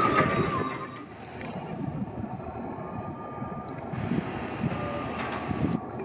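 Onboard ride music fades out about a second in. It gives way to the steady rumble of a PeopleMover car running along its elevated track.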